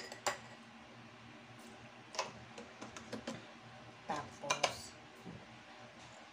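A metal spoon and containers being handled on a kitchen counter: a few scattered light clinks and knocks, the loudest two close together a little past four seconds in.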